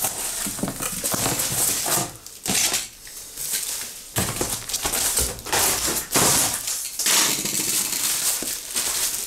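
Packaging rustling and crinkling as a stuck wrapper is pulled and torn off, in several bursts with brief pauses between them.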